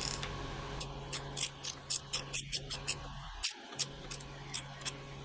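Socket ratchet clicking in a quick, slightly uneven run of about four clicks a second as a new grease nipple is tightened, over a faint steady low hum.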